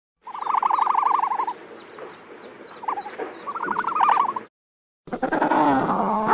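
Two bursts of rapid pulsed trilling calls, with faint high chirps repeating behind them. After a brief silence about five seconds in, a different animal begins calling with a clear, wavering pitch.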